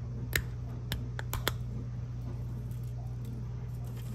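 Dishwasher running with a steady low hum, and about five sharp light clicks in the first second and a half as a glass spice jar of oregano is handled.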